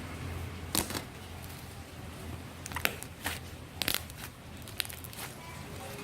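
Homemade glue slime being squeezed and stretched by hand, giving a few sharp clicking pops spread irregularly over the few seconds.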